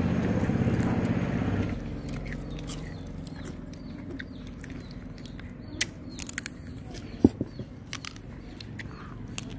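Close-up mouth sounds of eating fruit: wet chewing, smacking and scattered sharp clicks, one louder click a little after seven seconds in. A low engine-like hum runs underneath at first and stops abruptly under two seconds in.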